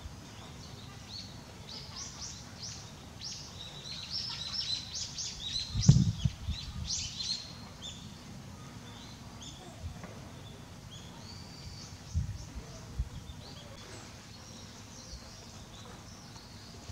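Small birds chirping in quick, overlapping calls, busiest in the first half and thinning out later. A low thump about six seconds in is the loudest moment, with two lighter thumps around twelve and thirteen seconds.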